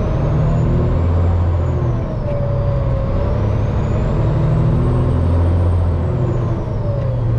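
Semi truck's diesel engine heard from inside the cab, pulling away from a stop and revving up through the gears, with a faint high whistle rising and falling with the revs. The engine note climbs, drops about two seconds in as a gear is changed, climbs again and drops once more near the end.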